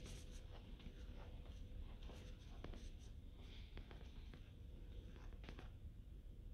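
Faint footsteps and scuffs on a hard tile floor, with a few sharper clicks, over a low steady hum.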